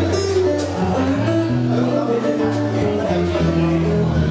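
Live jazz band playing an instrumental passage: guitar over a walking bass line and drums, with light cymbal strokes.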